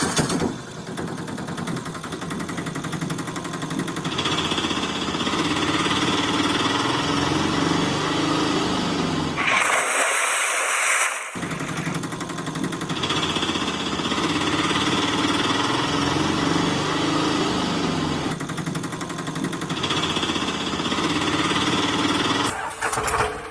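Small engine running with a fast rattling beat, its pitch rising and falling like an auto-rickshaw engine being revved. About ten seconds in it drops out for a second or so, replaced by a short hiss.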